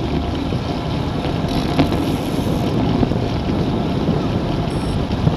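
Steady wind rush buffeting the microphone of a camera on a road bike ridden at about 38 km/h, with a single short click a little under two seconds in.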